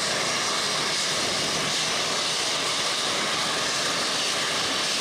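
Jet engines of a Boeing 737 airliner running at taxi power: a loud, steady hissing whine with no change in pitch.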